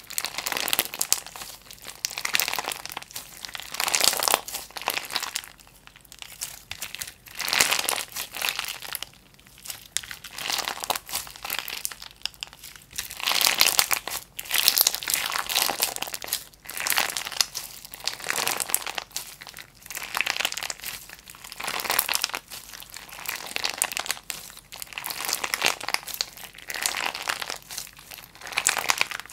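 Clear slime packed with flat purple shell-shaped pieces being squeezed and pressed by hand. It crinkles and crackles in repeated bursts every second or two.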